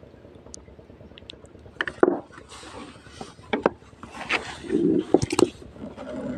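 Handling noise: cloth rubbing against the microphone, with scattered scrapes and a few sharp knocks, loudest about two seconds in and again near the five-second mark.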